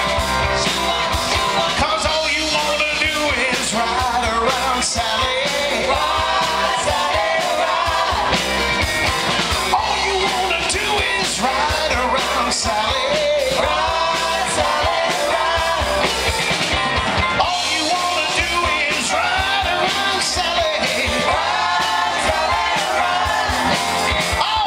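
Live rock band playing: a lead singer with backing vocals over electric guitar, drums and a harmonica played cupped against a microphone.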